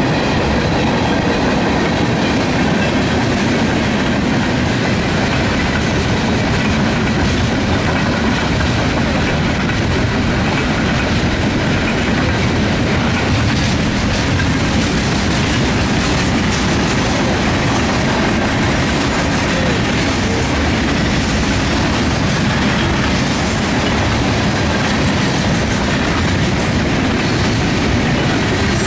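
Freight train of tank cars, open-top hopper cars and boxcars rolling past: a steady, loud rumble of steel wheels on rail, with wheels clicking over the rail joints.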